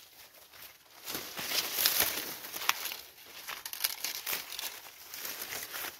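Dry, dead corn leaves and stalks rustling and crackling irregularly as they are brushed aside and trodden on by people walking through the cornfield.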